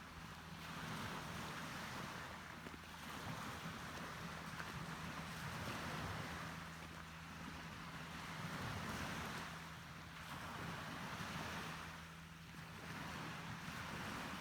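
Sea waves washing in and out, the rush rising and falling every two to three seconds, over a steady low hum.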